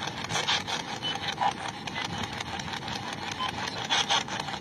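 Ghost box radio-sweep device scanning rapidly through radio frequencies, giving a choppy, rasping static broken into fast crackles, with brief snatches of tone. This static is what the ghost hunter listens to for a spirit's spoken answer.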